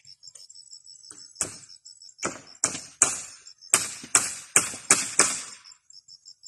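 A hand tool striking a wooden post: about nine sharp blows, the first faint, then coming quickly, roughly two or three a second, from about two seconds in.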